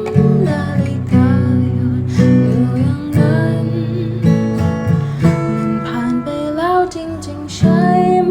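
Acoustic guitar music, with strummed and plucked chords under a melody line, played as a cover of a Thai pop song.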